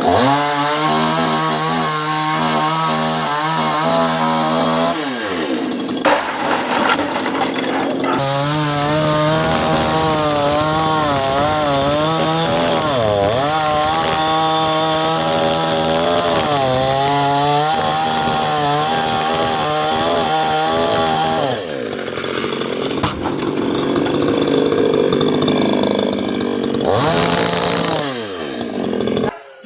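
Chainsaw cutting a coconut palm trunk. It is revved up in several runs, its pitch dipping and wavering under load through a long cut in the middle, and drops back between runs.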